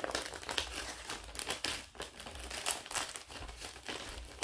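Sheets of paper rustling as they are handled and shuffled: an irregular run of crisp crackles.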